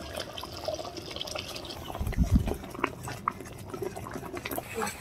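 Thick spiced masala bubbling and spluttering in oil in a metal kadai while being stirred with a metal spatula, with scattered small pops and a dull thump about two seconds in. The masala is cooked down to the point where the oil separates.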